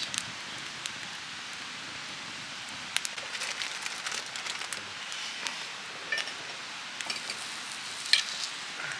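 Wood campfire crackling with scattered sharp pops, the loudest near the end, over a steady rushing of river water.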